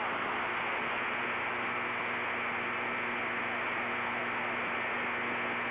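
Steady radio static hiss with a low, constant hum in a Cessna's cockpit in flight.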